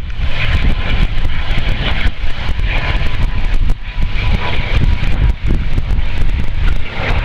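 Wind buffeting the microphone in gusts, over a steady distant engine drone.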